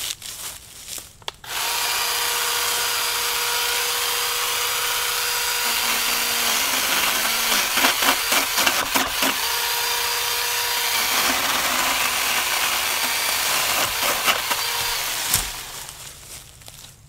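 A battery-powered electric pole saw's chain runs in a steady high whine, starting about a second and a half in. In the middle the pitch drops and it crackles as the chain cuts into the branch, then it runs free again. It stops near the end with a thump.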